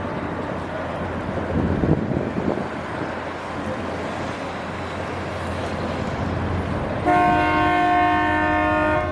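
Steady outdoor background noise, then about seven seconds in a loud horn sounds one long, steady blast of several tones together, held for about two seconds.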